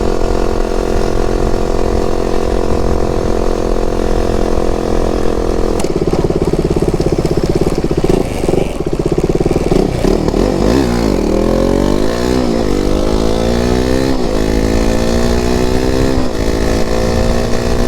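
KTM RC 390's single-cylinder engine under way, first holding steady revs, then from about ten seconds in pulled hard through several gears, the pitch climbing and dropping back at each upshift.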